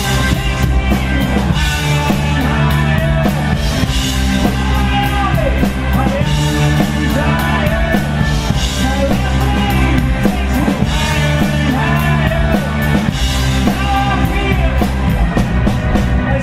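Live blues-rock band playing full out: drums, bass and electric guitar with a sung lead vocal.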